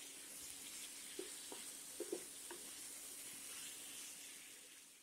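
Potato chunks sizzling faintly in a spiced onion-tomato masala in a frying pan as a spatula stirs them, with a few soft taps of the spatula against the pan in the middle.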